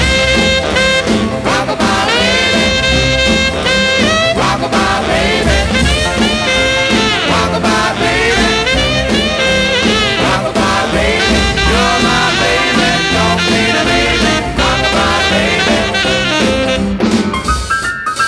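1950s rhythm-and-blues record in an instrumental break: horns play sliding, bending phrases over the full band's steady beat.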